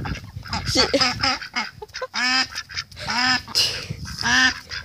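Domestic duck quacking: three loud, nasal quacks about a second apart in the second half, with a few softer calls before them.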